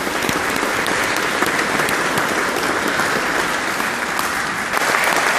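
Audience applauding steadily in a large hall, a little louder near the end.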